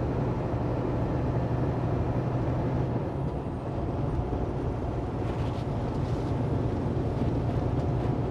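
Semi-truck driving at highway speed, heard from inside the cab: a steady engine drone with a low hum and road noise, dipping slightly in level a few seconds in.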